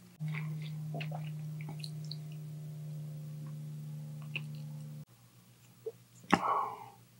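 A steady low hum starts abruptly and cuts off about five seconds in, with faint clicks of chewing over it. A short, louder rough noise follows about a second later.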